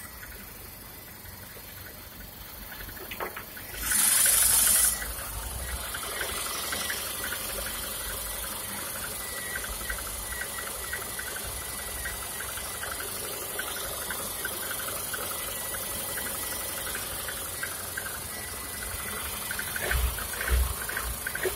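VAZ-21099 four-cylinder engine running cold at idle with a fast, even knocking from the alternator side, which the owner thinks could be the valves or a crankshaft pulley loose on a worn keyway. A short loud rush of noise comes about four seconds in, before the steady idle.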